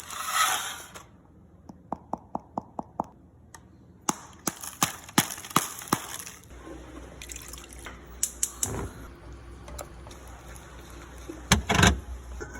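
Kitchen food-prep sounds: a short rush of liquid, then a run of quick, sharp clicks and taps. A low hum joins about halfway through, and a louder pair of knocks comes near the end.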